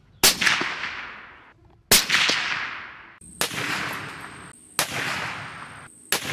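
Rifle shots from a .308 Winchester bolt-action rifle (Ruger American) firing Remington Core-Lokt 180-grain round-nose soft points. The first two are sharp reports about 1.7 s apart, each with a long fading echo. Three more shots follow about every 1.4 s, with a faint steady high tone behind them.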